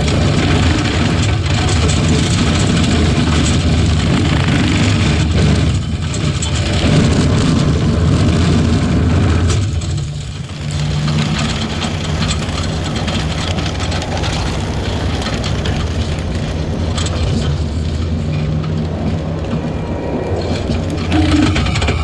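Bobcat T650 compact track loader's diesel engine running steadily under load, with a Blue Diamond severe-duty brush cutter working on the front. The sound dips briefly about ten seconds in.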